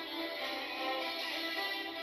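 Music with a guitar playing.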